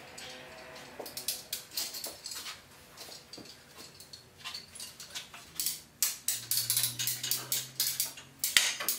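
Irregular clicks and knocks of tool work on a wooden wagon undercarriage, growing busier about halfway through. A steady low hum comes in about six seconds in.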